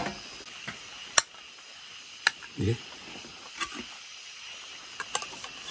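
A few sharp clicks and knocks, as of kitchen utensils, over a steady background of crickets chirping. A short low vocal sound comes about two and a half seconds in.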